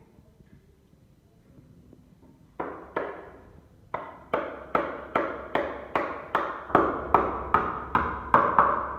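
Hammering on wood: two blows about two and a half seconds in, then after a short gap a steady run of about a dozen blows, roughly two and a half a second, getting louder toward the end.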